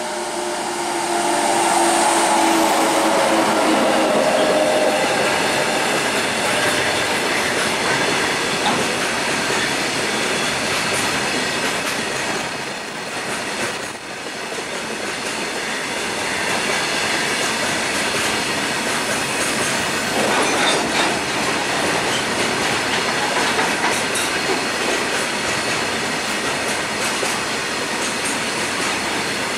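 Indian Railways WAG-9HC electric freight locomotive going by with a whine that falls in pitch over the first few seconds. After it, a long train of open box wagons rolls past, with a steady noise of wagon wheels on the rails.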